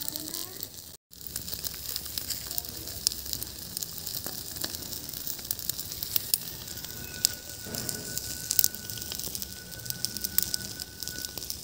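Firewood fire crackling under fish grilling on it, a steady sizzling hiss broken by many sharp pops and snaps. The sound cuts out for an instant about a second in, and a faint steady high whistle-like tone runs through the last few seconds.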